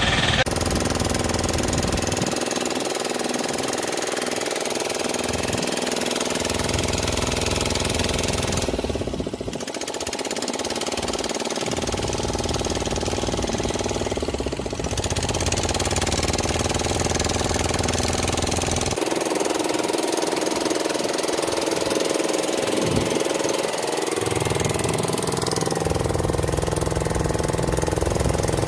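Small river boat's outboard motor running steadily, heard from on board, with a low knocking chug. The engine note changes abruptly about two-thirds of the way through.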